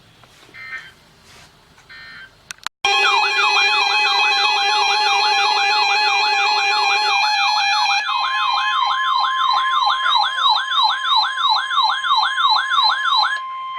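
Emergency alert broadcast signal. First come a few faint short data bursts. About three seconds in, a loud electronic alarm starts: several steady tones under a siren-like tone sweeping up and down about two and a half times a second. About halfway through, the lower steady tones drop out, leaving one steady tone with the sweep over it until the alarm cuts off just before the end.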